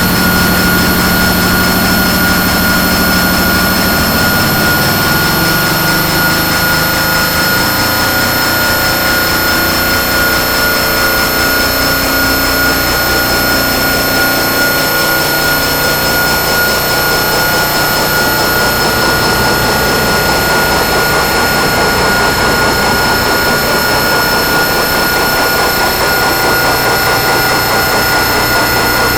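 Harsh-noise drone from electronic noise synths run through distortion pedals: a loud, dense wall of noise with steady high-pitched whistling tones and a fast-wobbling shrill whine on top. A low hum underneath drops away about four seconds in, and the lower tones keep shifting.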